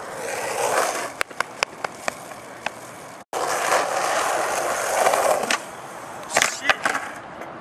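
Skateboard wheels rolling over rough concrete, with scattered sharp clicks. After a break near the middle the rolling starts again, and near the end come a few sharp clacks of the board as the rider jumps over the water channel.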